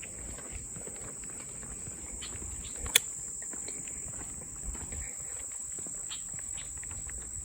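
Steady high-pitched insect trilling, the sound of crickets or katydids on a hot summer day, with footsteps on a path and one sharp click about three seconds in.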